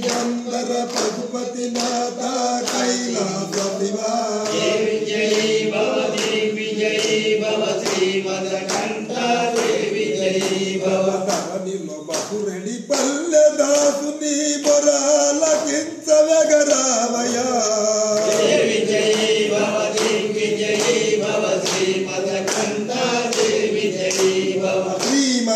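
Male voices singing a devotional chant together, on long held notes, over a steady sharp beat about twice a second.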